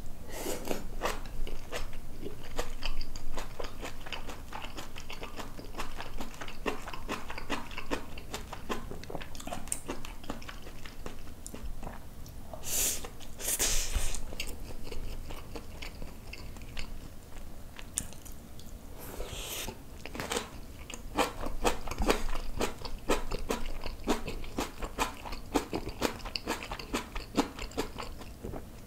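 Close-miked wet chewing and mouth clicks of a person eating braised kimchi with pork belly and rice, with a couple of brief louder hissing noises about halfway through and again a little later.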